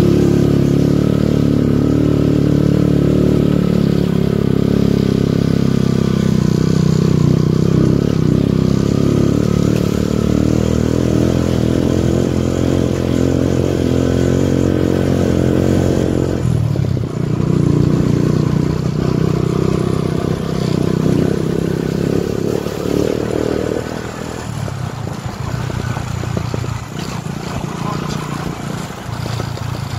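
Motorcycle engine running steadily as the bike rides along a rough dirt road. The note breaks off briefly about sixteen seconds in, then picks up again. For the last few seconds the engine runs quieter.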